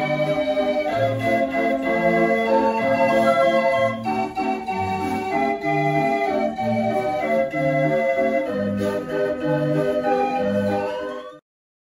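Dutch street organ playing a dance tune over a steady alternating bass, cutting off suddenly near the end.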